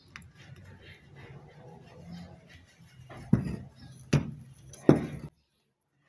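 Metal blender motor parts being handled: the new armature and its bearing bracket rattle and clink against the metal base housing, with three sharp clacks about a second apart near the end as the armature is fitted in.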